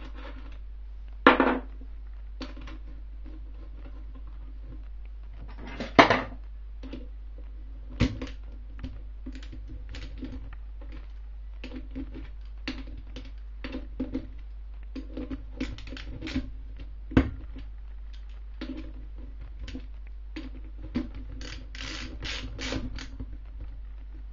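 Metal parts and hand tools clicking and clinking against an aluminium motorcycle gearbox casing as the gear shift mechanism is fitted, with two louder knocks in the first six seconds. Near the end comes a run of quick clicks as a small ratchet wrench is worked on a bolt.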